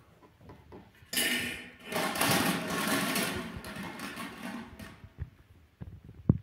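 Hollow plastic draw balls rattling and clattering against a glass bowl as a hand stirs through them, for about four seconds. Then a few sharp clicks near the end as a plastic draw capsule is twisted open.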